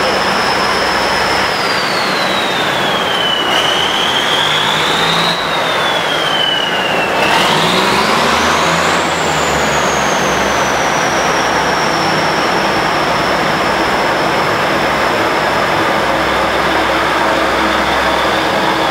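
Taiwan Railway DR2700 diesel railcar set pulling away, its engines running steadily under load. A high whine glides down, rises, falls again, then jumps higher about seven seconds in and slowly sinks.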